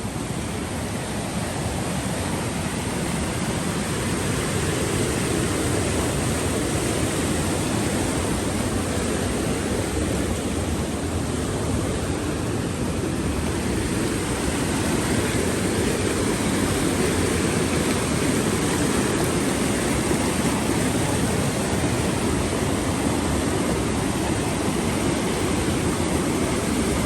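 Rushing water of a flooded mountain river, a steady loud roar.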